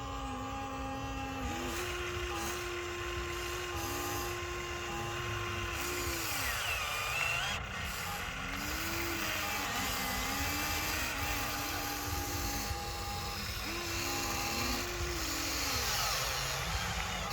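Small electric motor of a toy excavator or truck whirring in several runs, its pitch stepping up and sliding down as it starts and stops.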